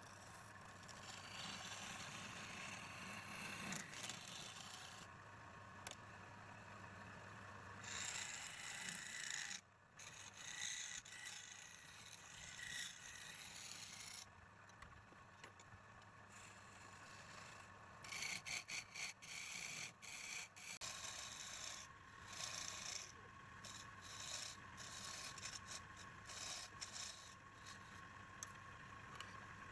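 Irregular rubbing and scraping strokes, like hand work on metal or wood, with a run of quicker strokes about two-thirds of the way through.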